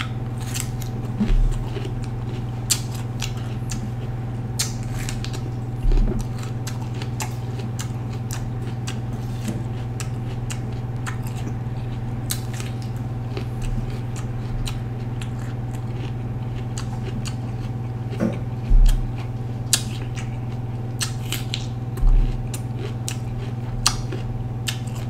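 Raw red bell pepper being bitten and chewed close to the microphone: irregular crisp, wet crunches, with a few dull low thumps, over a steady low hum.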